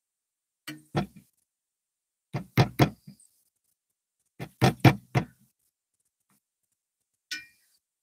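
Northern flicker pecking at a wire suet cage: short bursts of two to five sharp knocks, about every two seconds, with a single knock near the end.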